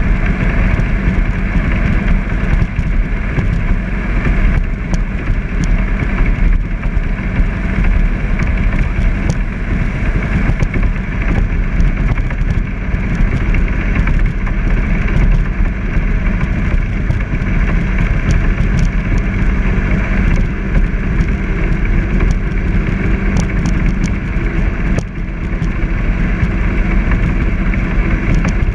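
Jet boat running steadily at cruising speed: a steady engine drone under a loud rushing noise.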